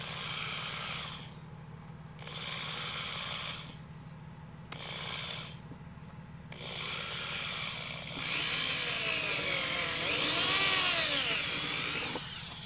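Power drill with a 3 mm (1/8 in) bit drilling pilot holes through the plastic bumper cover, in four runs: three short ones, then a longer one of several seconds whose motor whine rises and falls as the trigger and load change.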